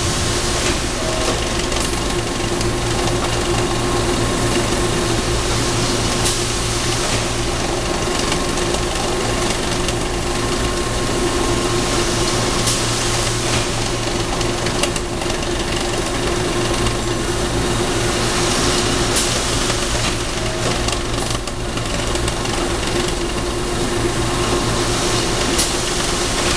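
Plastics production-line machinery running steadily: a continuous mechanical hum with a steady tone, and a sharp knock about every six and a half seconds as the machine cycles.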